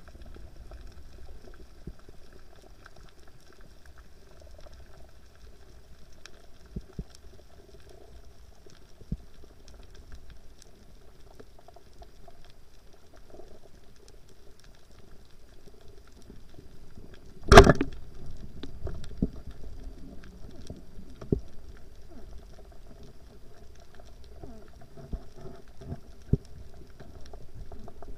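Underwater sound through an action-camera housing: a faint steady hum with scattered clicks and crackles over the reef. About two-thirds of the way through, one loud sharp crack as the homemade speargun is fired at a grouper, followed by more frequent knocks and rattles as the speared fish struggles.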